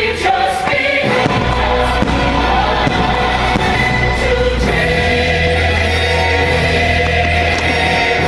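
Fireworks-show soundtrack music with a choir singing long held notes over a steady low accompaniment.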